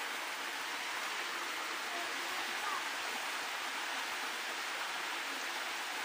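A waterfall rushing: an even, unbroken hiss of falling water.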